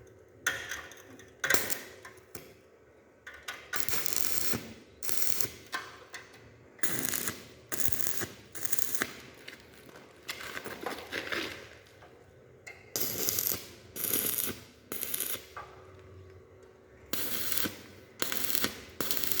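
Electric arc welding: the arc crackling and sizzling in a run of short bursts, each about half a second to a second long, broken off and struck again with brief pauses between.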